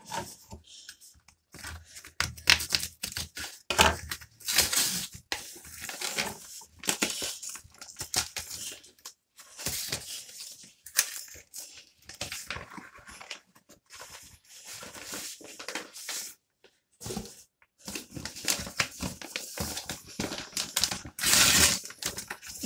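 A cardboard postal mailer being torn open by hand: irregular bursts of tearing, rustling and crinkling of the packaging, with short pauses between.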